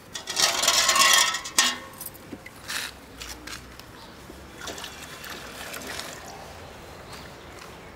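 Liquid poured splashing into a steel bowl for about a second near the start, then puppies lapping and slurping from the bowl.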